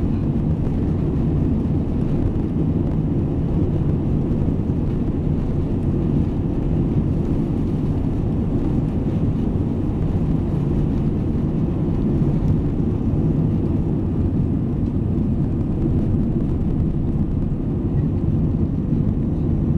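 Jet airliner's engines at takeoff thrust heard from inside the cabin: a steady low rumble through the takeoff roll and liftoff.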